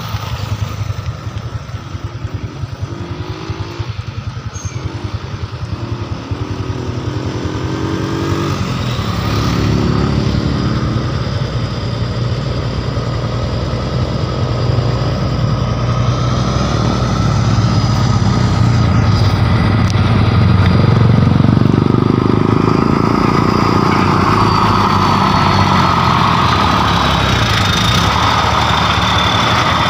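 Diesel engine of a loaded flatbed truck pulling away, its pitch rising in steps through the gears, then running steadily and louder after about twenty seconds.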